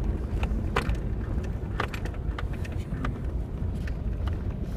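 2000 Toyota 4Runner driving slowly in low-range four-wheel drive over snowy off-road ground: a steady low engine and drivetrain rumble, with scattered sharp clicks and rattles as the truck jolts over the terrain.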